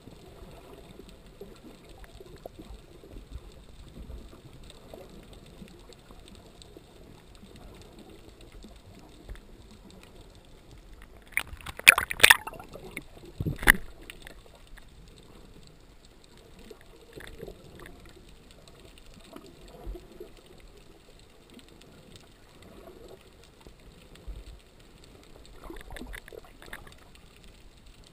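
Underwater sound through a GoPro camera housing while snorkeling: low, muffled water noise with faint clicks. About twelve seconds in there is a loud rush of water, and a second, shorter one follows about a second and a half later.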